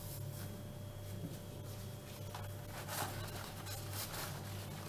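Faint kitchen handling sounds: a plastic lid being closed on a glass jar and a sheet of paper towel rustling, a couple of soft rustles in the middle. A steady low hum runs underneath.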